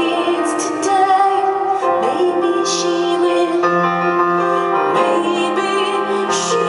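Live concert performance: a woman singing with piano and keyboard accompaniment, with sustained held notes.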